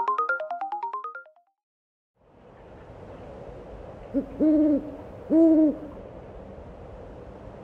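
The last notes of a rising chiming logo jingle fade out in the first second, followed by a brief silence. Then an eerie hissing ambience begins, and an owl hoots about halfway through: a short hoot followed by two longer hoots, each rising and falling in pitch.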